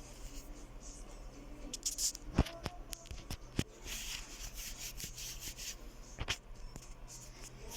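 Quiet handling noise: rustling with a few sharp clicks or knocks, the clearest about two and a half, three and a half and six seconds in.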